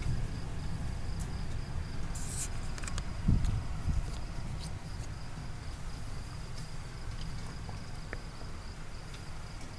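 Crickets chirping in a steady, evenly pulsing high rhythm, over a low rumble that swells briefly about three seconds in, with a few scattered faint ticks.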